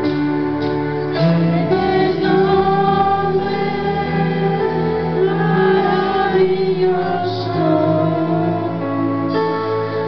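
Church worship team, male and female voices, singing over instrumental backing through microphones and a PA. The singing fills out about a second in.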